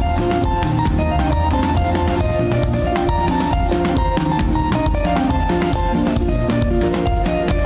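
Live band playing an upbeat gospel dance groove with no vocals: drum kit with steady kick and snare hits over a heavy bass line, and a lead guitar picking a melody of short notes.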